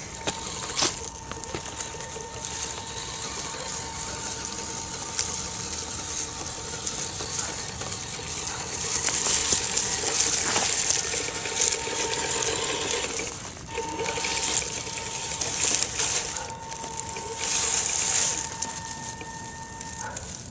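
Axial SCX10 radio-controlled scale crawler driving over dry leaves: the electric motor and gears give a steady whine while the tyres crunch and rustle through the leaf litter, the crunching loudest in several stretches in the second half.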